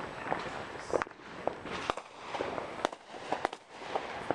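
Fireworks and firecrackers going off: a run of irregular sharp pops and cracks, several close together at times, over a continuous hiss.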